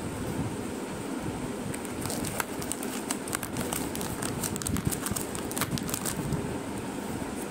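Steady whirring background noise, like a room fan. A run of small clicks and taps comes about two to six seconds in, from handling close to the microphone.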